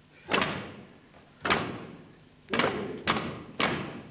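Five sharp knocks at uneven spacing, each echoing away for most of a second: long wooden staves struck against the stage floor.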